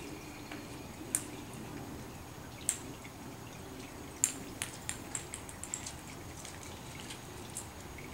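Scattered sharp clicks over a steady low hum: a single click about a second in, another a second and a half later, then a quick run of about eight clicks in the middle and one more near the end.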